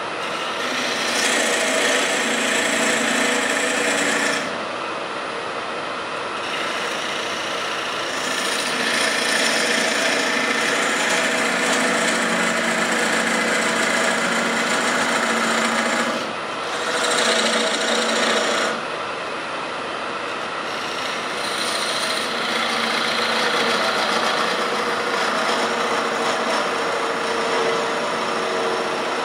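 Wood lathe running with a hand-held turning tool cutting into a spinning oak blank, the rough scraping of the cut coming in four stretches between quieter spells of the lathe's hum.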